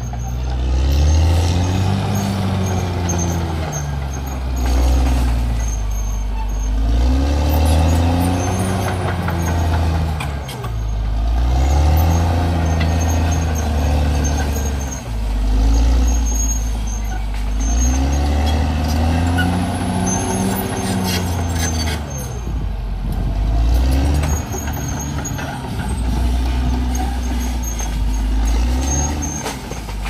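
CAT D6R XL crawler bulldozer's diesel engine working under load, its revs rising and falling again and again every few seconds.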